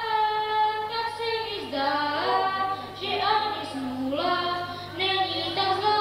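A child singing a song unaccompanied into a microphone, holding notes of about a second each that step up and down in pitch. A faint steady low hum runs underneath.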